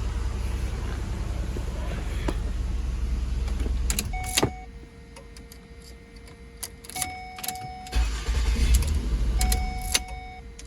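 2008 Ford Escape engine idling, then switched off with a click about four seconds in. A repeating electronic warning chime follows, each tone about half a second long, with a brief low rumble near the end.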